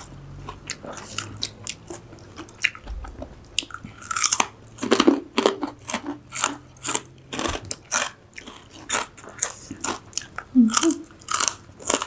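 Chewing and biting on food, a rapid run of crisp crunches that grows denser and louder about four seconds in.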